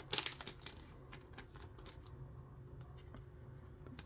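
A football trading card being slid carefully into a plastic card sleeve. A flurry of rustling and crinkling in the first second gives way to a few faint, scattered ticks.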